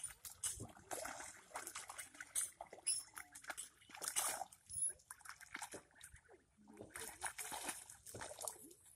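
Ducklings splashing and dabbling in shallow muddy water: irregular small splashes and sloshing.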